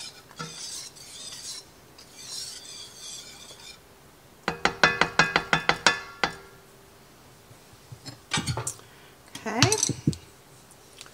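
Wire whisk stirring thick cream sauce in an enamelled cast-iron pot, a soft scraping, then about a dozen quick taps of the whisk on the pot's rim, about six a second, knocking the sauce off.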